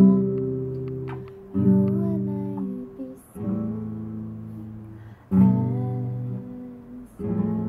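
Nylon-string classical guitar strummed: five chords struck about two seconds apart, each left to ring and fade before the next.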